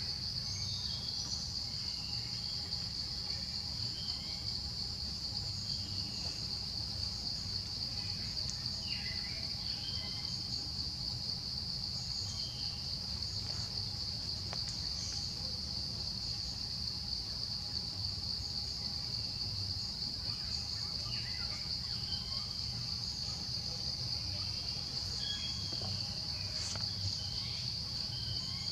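Steady, unbroken high-pitched drone of insects in chorus, with short faint chirps scattered here and there.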